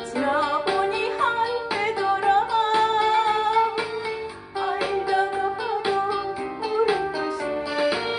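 Female voice singing a Korean trot song with vibrato over a backing band with a steady beat.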